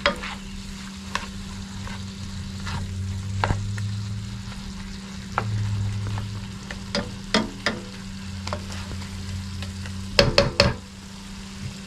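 A utensil stirring and scraping in a pot of simmering bamboo shoots, with sharp clinks against the pot and a quick cluster of louder knocks about ten seconds in. A steady low hum runs underneath.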